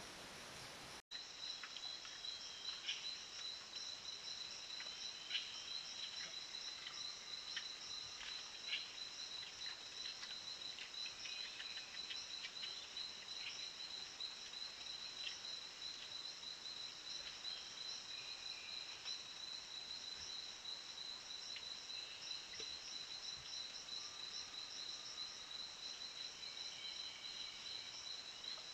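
Steady, high-pitched insect chorus with a pulsing trill, starting abruptly about a second in, with scattered short chirps and brief calls from other animals over it.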